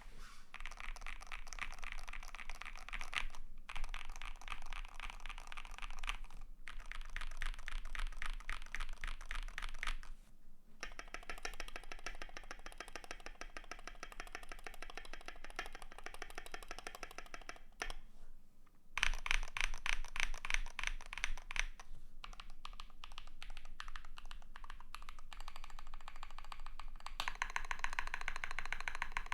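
Continuous fast typing on a KBD75 v3.1 custom mechanical keyboard with a brass plate, lubed Fekker Panda V2 switches and AKKO ASA-profile keycaps: a dense run of key clicks with a few brief pauses.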